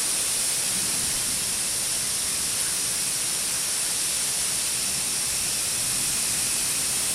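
Wind blowing steadily ahead of an approaching severe thunderstorm, heard as an even rushing hiss.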